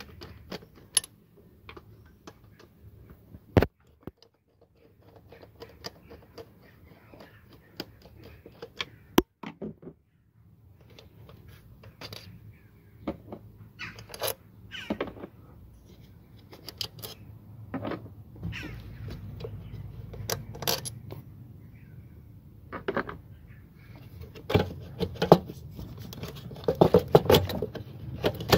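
Scattered metallic clicks and clinks of hand work on a car's throttle body: a Torx screwdriver on its mounting screws, then the throttle body being worked loose by hand. Two sharp single clicks come early, and the clatter gets busier and louder near the end.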